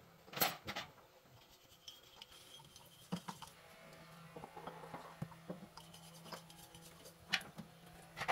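Small metal parts handled over a stainless steel tray: scattered light clicks and scrapes, with a few sharper ticks about half a second in and again near the end.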